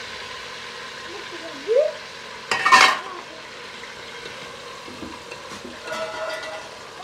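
Food frying and sizzling in an aluminium pot on a gas burner while a metal ladle stirs it. There is a brief loud clatter about two and a half seconds in, and a softer metallic clink near the end.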